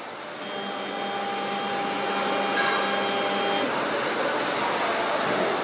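CNC router's stepper motors whining at a steady pitch as the spindle head is jogged along its axis, cutting off after about three seconds. A steady hiss runs underneath throughout.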